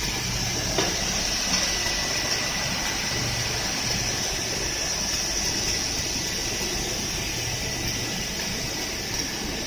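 Three-head wide belt sander running steadily: an even machine hum with a high hiss and a thin, steady whine over it.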